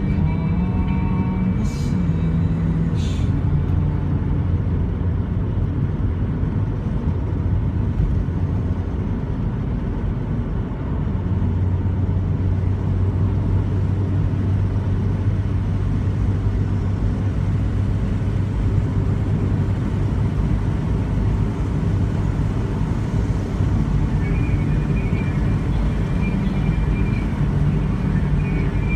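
Steady engine and road noise of a BMW Z3 driving along, heard from the car, with two brief clicks about two and three seconds in.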